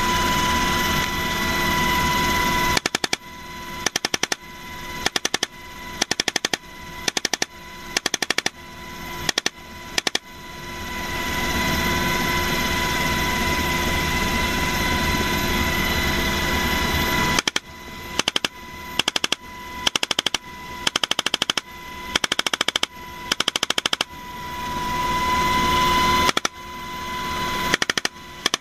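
Helicopter door gunner's machine gun firing short bursts about a second apart, in two long runs. Between the runs, the helicopter's engine and rotor noise runs steadily.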